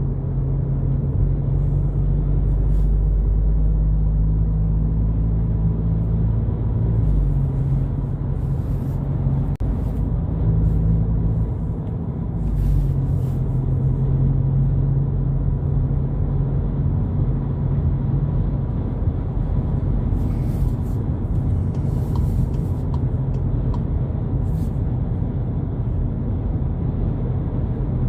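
2022 Volkswagen Polo GTI driving: a steady low rumble of engine and road noise, with the engine's low hum fading out and coming back a couple of times as the speed changes.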